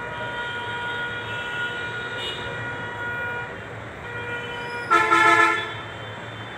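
A vehicle horn honks once, loud and under a second long, about five seconds in, over a steady background of faint held tones and hum.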